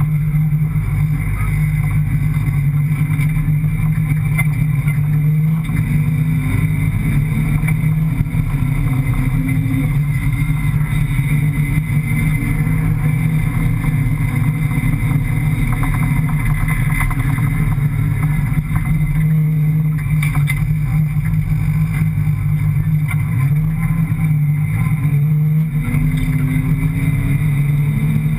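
A rally car's 5.7-litre Hemi V8 running hard under load across sand, heard from inside the cockpit: a steady, loud engine drone, with the revs rising and falling a few times.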